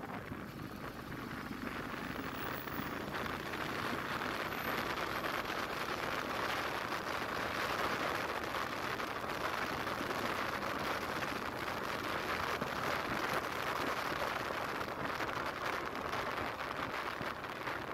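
Steady rushing road and wind noise from a moving vehicle, growing a little louder over the first few seconds as it picks up speed.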